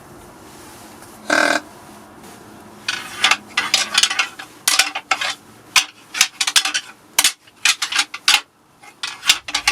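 Deer rattling antlers clashed and ground together in fast, irregular clacks, a rattling sequence meant to imitate bucks sparring during the rut. They are preceded about a second and a half in by one short grunt from a deer call.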